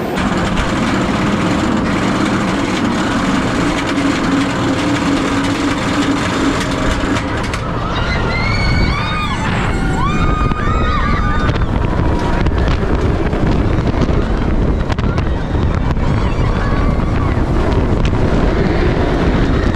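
Roller coaster ride: a steady low hum for the first seven seconds or so, then several riders screaming for a few seconds, then rushing wind on the microphone.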